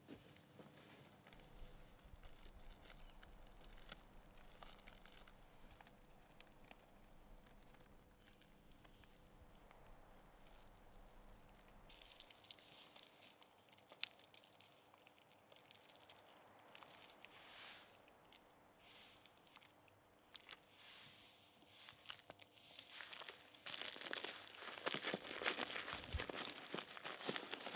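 Crinkling and tearing of a small paper-and-plastic packet being handled and opened in close-up, faint at first and growing louder near the end. A faint steady hum lies under the first part.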